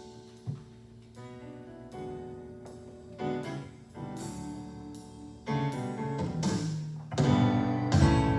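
Piano or keyboard introduction to a gospel song: sustained chords struck one after another, growing louder, with bass joining near the end.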